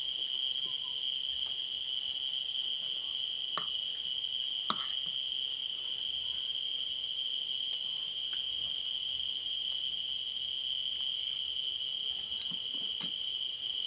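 Steady, unbroken high-pitched chirring of night insects. A couple of light clicks of a spoon against the plate come about four and five seconds in.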